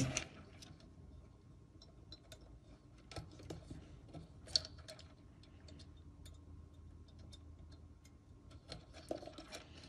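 Faint, irregular small clicks and ticks of wire pins being pushed into a plastic ECU connector and the connector being handled.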